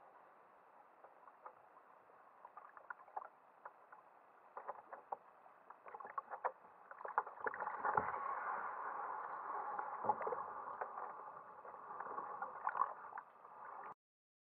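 Kayak paddling: repeated splashes and drips of the paddle blades dipping into the river, with water sloshing, muffled and growing louder and busier about halfway through. The sound cuts off suddenly near the end.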